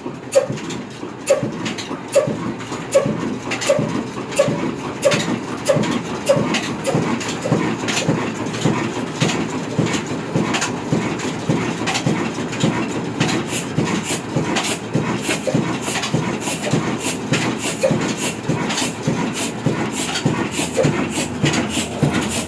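Horizontal single-cylinder Ruston diesel engine with a large flywheel running steadily under load, driving a flour mill (aata chakki). It gives a regular thumping beat a little over once a second, with sharp metallic clicks from the valve gear and drive.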